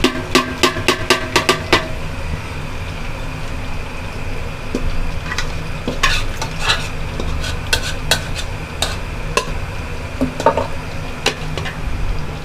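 A metal spoon clinking and scraping against a cooking pot as cooked beef is added to the polao rice for biryani and stirred in: a quick run of clinks in the first two seconds, then scattered knocks. A steady low hum runs underneath.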